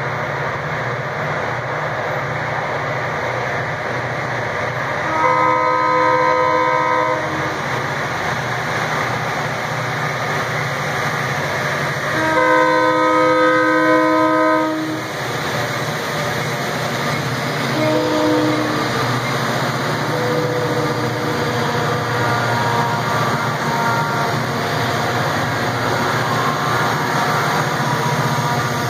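Freight train's covered hopper cars rolling past with a steady rumble and clatter of steel wheels on rail. Over it, the distant locomotive horn sounds the grade-crossing signal: two long blasts, then a short one and a long one, the last two fainter.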